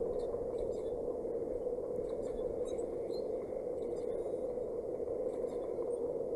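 Steady wind rushing over the nest-cam microphone, with faint short high squeaks and ticks scattered through it.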